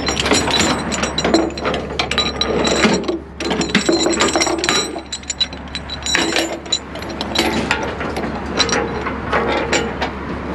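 Ratchet chain binder being cranked to tighten a tie-down chain: rapid metallic clicking of the ratchet and clinking of the chain links, in spurts with a few short pauses between strokes.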